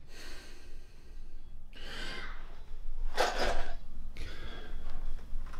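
A person's breathy sighs and huffs close to the microphone, four in a row, the loudest about three seconds in.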